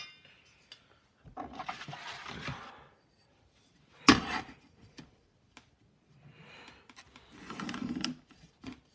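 Pencil scratching along a steel ruler on paper as guide lines are drawn, in two spells, with one sharp knock about four seconds in.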